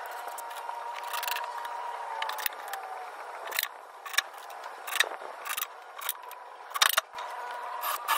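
Cordless drill running with a steady whine as a twist bit bores into a wooden board, its pitch sagging slightly about halfway through. Sharp clicks and knocks follow, and the drill whines again near the end.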